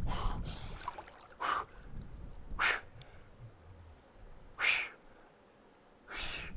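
A man's sharp, forceful breaths, about five of them, each short and separated by a second or two, as he sits in icy water: cold-shock breathing.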